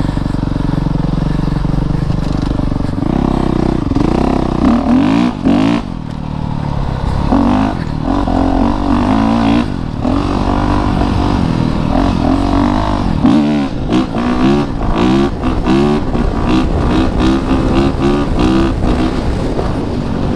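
Honda CRF450RX dirt bike's 450 cc single-cylinder four-stroke engine being ridden hard, its pitch climbing and dropping again and again as the throttle is worked, with quick runs of rising revs.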